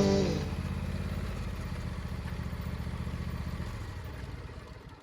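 Small engine idling with an even low putter, slowly fading out near the end; guitar music trails off in the first moment.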